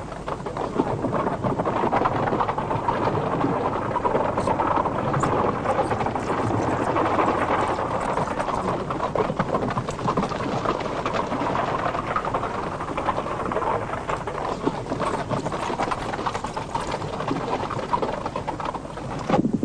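A mounted attack: many horses galloping in a dense clatter of hooves, with scattered gunshots through the din.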